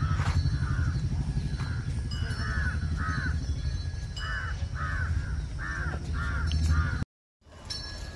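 A crow cawing repeatedly, about two caws a second, louder from about two seconds in, over a steady low rumble.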